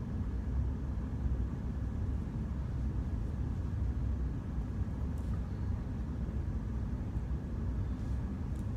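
Steady low rumble of room background noise, with a faint steady high tone over it and a few faint ticks near the end.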